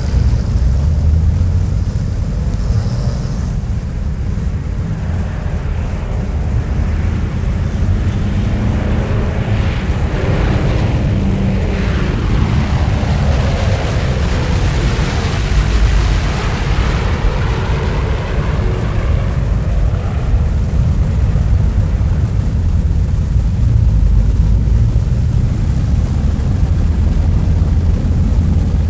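Airplane engines running with a steady deep rumble. Partway through, an aircraft passes, its engine tones rising and then sliding down in pitch as it goes by, before the rumble settles back.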